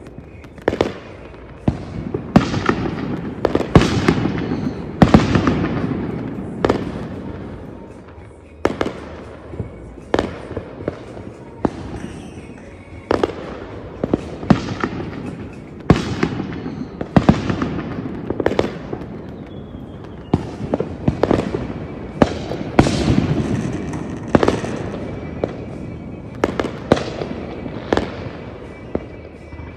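Aerial fireworks display: shell bursts going off about once a second, each sharp bang trailing off in an echoing tail.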